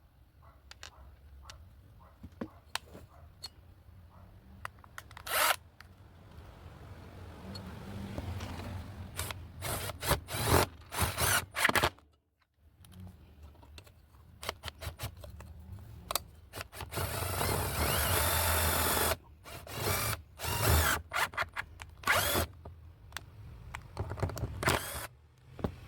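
Bosch GDR 120-Li 12 V cordless impact driver driving gypsum screws through sheet metal into wood, in short trigger bursts and one steadier run of about two seconds; a brief dead silence near the middle splits the two screws.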